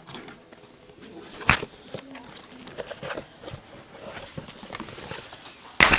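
Handling noise as a cardboard package is opened: scattered light clicks and knocks, one sharper click about a second and a half in, then a short, loud rustle right at the end.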